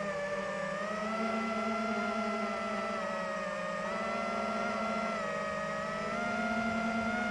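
FPV quadcopter's motors and propellers buzzing steadily in flight, the pitch drifting a little down and up as the throttle changes.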